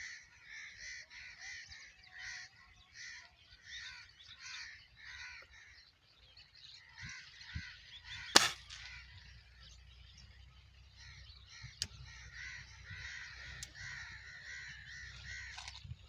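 Birds calling with harsh, repeated cries about twice a second, then a denser run of calls near the end. A single sharp crack about eight seconds in, the loudest sound, fits a shot from the Gamo Whisper X air rifle.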